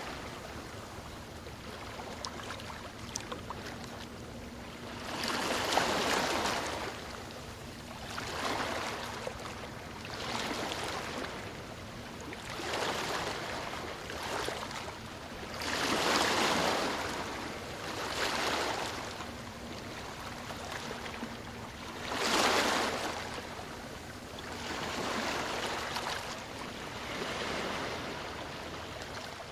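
Ocean surf: waves breaking and washing up the shore one after another, each a rising and falling rush of foam every two to three seconds. Bigger breakers land about six, sixteen and twenty-two seconds in.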